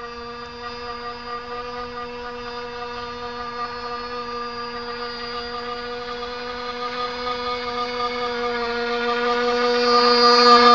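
1.25cc water-cooled nitro engine of a radio-controlled model boat running at a steady, high-pitched buzz. It grows louder as the boat approaches and is loudest as it passes close near the end.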